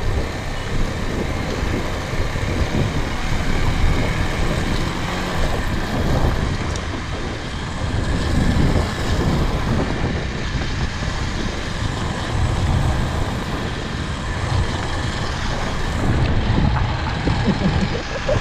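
Motorcycle running on the move: a steady, noisy rush with no clear engine note, swelling and easing slightly.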